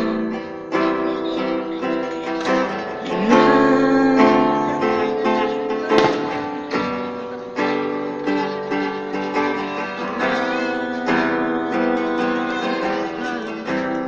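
Acoustic guitar played on its own, chords strummed with sharp new attacks about once a second. There is a single sharp knock near the middle.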